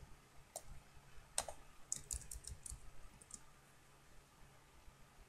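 Faint clicks of typing on a computer keyboard: a couple of single taps, then a quick run of about half a dozen around two seconds in, and a few more before it falls quiet.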